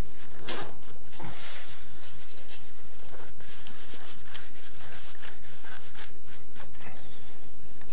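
Plastic sewer pipe and fitting being pushed and twisted together by hand, the greased plastic joint rubbing and scraping, with scattered clicks and knocks. The strongest scrapes come about half a second and a second and a half in.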